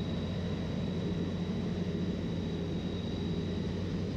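Skyranger Swift 2 microlight's 100-horsepower engine and propeller droning steadily, heard from inside the cockpit, with a faint steady high whine over it.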